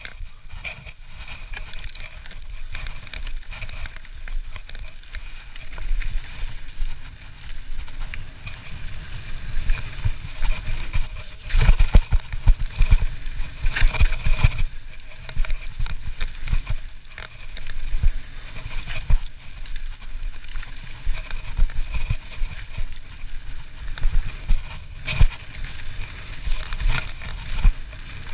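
Trek Slash full-suspension mountain bike riding downhill on a dirt and rock trail: a steady rumble of knobby tyres rolling and wind on the microphone, broken by frequent knocks and rattles as the bike hits bumps, with the heaviest jolts about 12 and 14 seconds in.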